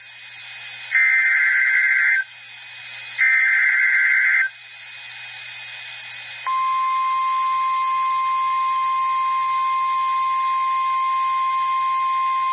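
NOAA Weather Radio alert signal: the last two of the three SAME digital header bursts, harsh screeching data tones about a second long each, over faint radio hiss. About two seconds after the second burst, the steady single-pitch 1050 Hz warning alarm tone starts and holds, announcing a new warning message.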